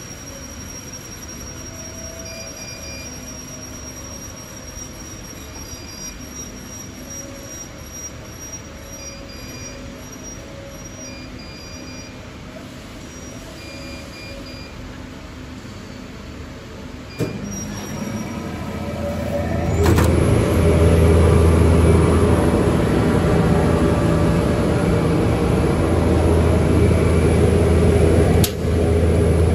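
Double-sided adhesive tape pasting machine: at first a low steady hum with short beeps as its touch-screen panel is pressed. About two thirds of the way in there is a click and the machine starts, running loud and steady with a low drone and a rushing mechanical noise. A short clunk comes near the end.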